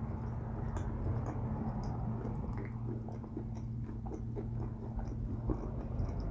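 A man chewing food close to the microphone, with irregular small wet clicks and crunches, over a steady low hum.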